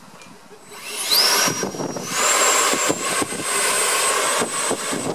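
X-Fly 64mm 3200kv electric ducted fan in a Freewing F-22 Raptor foam jet spooling up from rest about a second in. Its whine climbs quickly, steps up again about two seconds in, then holds at a high steady pitch over a loud rush of air.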